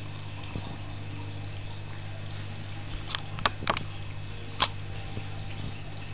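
A few small splashes and drips of water in a toilet bowl as a cat moves in it: four short, sharp ones between about three and five seconds in, over a steady low hum.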